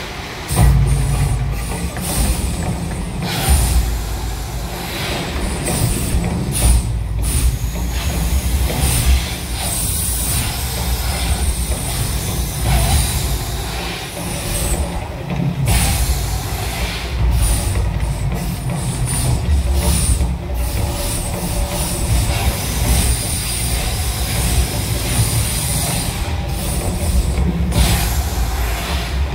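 Mirage volcano show: a deep, continuous rumble with repeated rushing bursts of noise as the gas fire jets flare over the lagoon.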